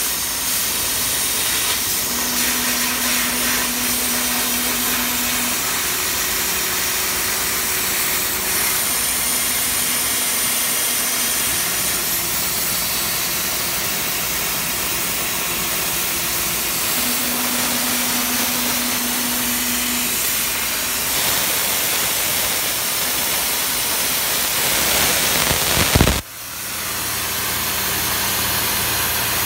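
A CNC plasma cutter's torch cutting 3/16-inch steel plate: a loud, steady hiss from the plasma arc and its air jet. About 26 seconds in the hiss swells, breaks off sharply, then builds back up.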